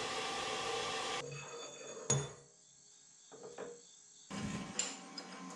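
A horizontal metal-cutting bandsaw running, then stopping about a second in, followed by one sharp metallic clank. Later there is light clatter of steel parts being handled.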